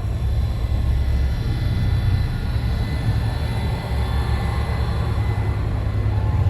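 A motor running steadily, a heavy low rumble with a faint steady whine above it.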